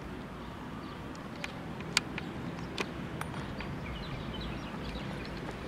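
A gateball mallet strikes the ball with one sharp wooden clack about two seconds in, followed by a smaller click under a second later, over steady open-air background.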